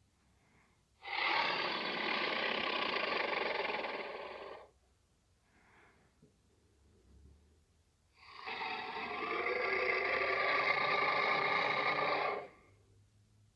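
Two long T-rex roar sound effects, each lasting about four seconds, with faint breathing sounds between them.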